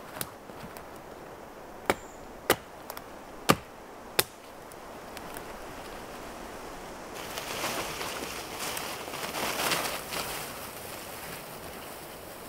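Dry dead branches snapping with sharp cracks, five snaps at irregular intervals over the first four or so seconds, then a few seconds of rustling through branches and undergrowth.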